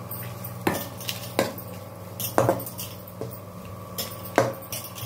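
Metal spoon stirring and scraping a thick chutney with onions around a non-stick kadai, knocking against the pan about six times, loudest near the end.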